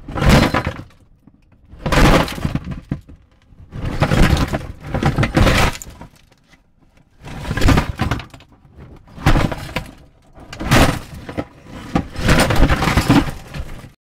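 A series of about seven loud crashing, shattering noises like breaking glass, each lasting up to a second or so, coming roughly every one and a half to two seconds.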